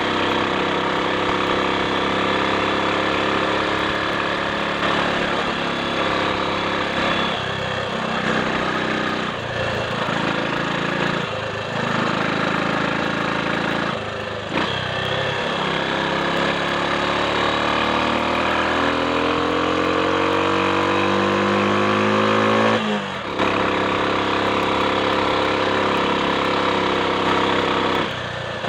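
Triumph Sports Cub's single-cylinder four-stroke engine running on the road, with several brief dips in its sound in the first half. Then the revs rise steadily for several seconds, cut off briefly, and the engine carries on at a steady note.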